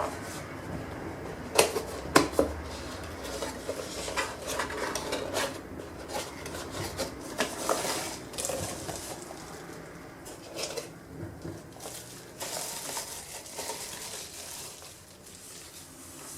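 Dishes and utensils clattering: irregular clinks, knocks and scraping, with two sharp clinks about two seconds in.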